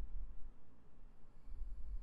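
A sleeping person snoring low. One snore fades out just after the start and the next begins about a second and a half in.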